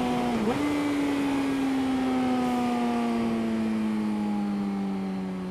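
Motorcycle engine running under way. Its note dips briefly about half a second in, then falls slowly in pitch as the bike slows.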